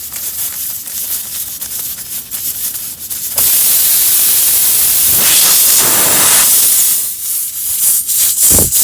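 Air hissing out of a nail puncture in a tubeless car tire as the plug-kit tool is worked in the hole, jumping to a much louder hiss about three and a half seconds in: the tire is losing pressure through the open hole.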